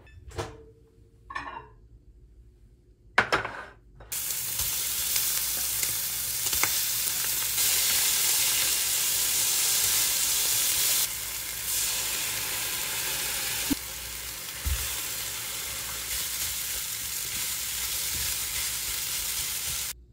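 A few short kitchen clatters, then kimchi and meat sizzling loudly and steadily in a frying pan, stirred with tongs, for kimchi fried rice. The sizzle starts about four seconds in and stops abruptly at the end.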